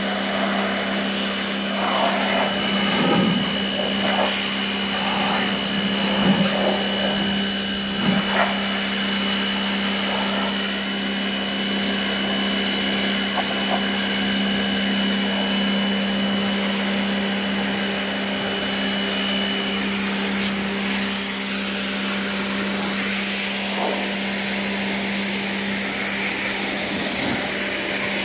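Pressure washer running with a steady hum, its water jet hissing against paving stones.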